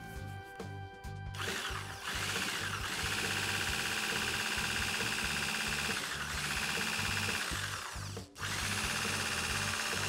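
Electric stick blender with a wire whisk attachment running steadily as it beats eggs and condensed milk together in a stainless steel bowl. It starts about a second in and cuts out for a moment near the end before running again. Background music with a steady beat plays underneath.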